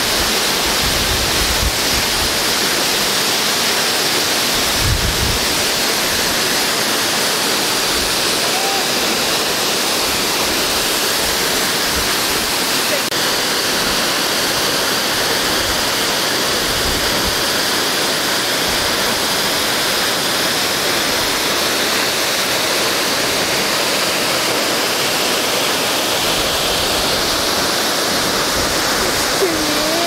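A tall waterfall of about 100 metres of free fall, heard from close to its base: a steady, loud rush of falling water, with brief low thumps now and then.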